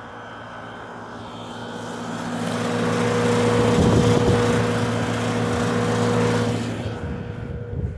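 A steady machine hum, a low motor drone with a whine over it, that grows louder over the first few seconds and fades away near the end.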